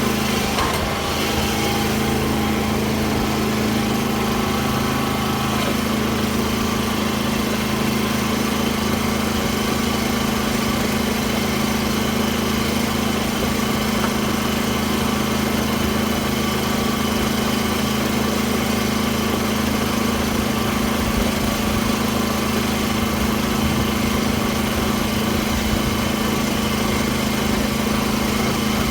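Small farm tractor's engine running steadily under load while tilling a field with its rotary tiller, a constant even hum.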